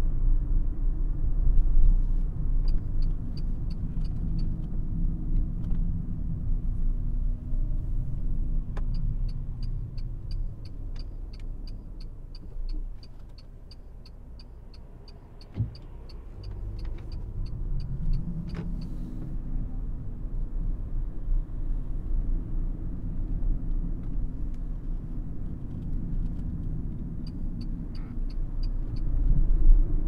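Renault ZOE R110 electric car driving in town traffic, heard from inside the cabin: tyre and road rumble with a faint electric-motor whine that falls as the car slows almost to a stop halfway through and rises again as it pulls away. A turn-signal indicator ticks evenly in three runs, the longest through the slow stretch in the middle, and there is one sharp click near the quietest point.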